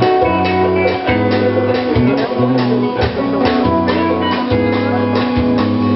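Live band playing an instrumental passage between sung verses, with a drum kit keeping a steady beat over held bass notes and guitar.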